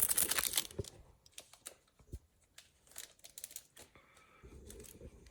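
Packaging crinkling in quick dense crackles for about the first second, then only scattered light clicks and taps of handling.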